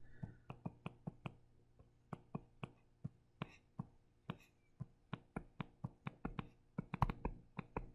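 Stylus pen tip tapping and clicking against a tablet screen during handwriting: an irregular run of light taps, two or three a second, coming closer together near the end.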